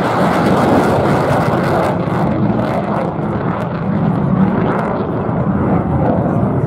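Eurofighter Typhoon's twin EJ200 turbofan engines in afterburner, loud, steady jet noise as the fighter climbs away in a banking turn.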